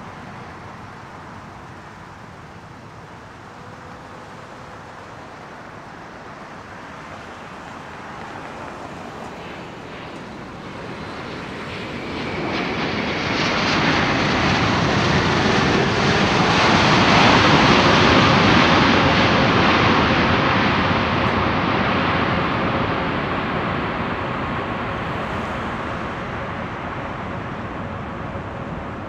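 Boeing 777-200ER jet airliner with GE90 engines landing and rolling out on the runway. Its engine roar swells from about halfway in, is loudest a little past the middle as it passes, then slowly fades.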